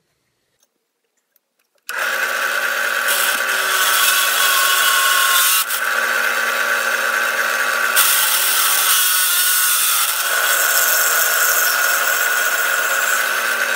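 Drill press starts about two seconds in and runs steadily, its oiled twist bit cutting a hole through a metal bracket: a steady motor hum with a high-pitched cutting noise on top, stopping suddenly at the end.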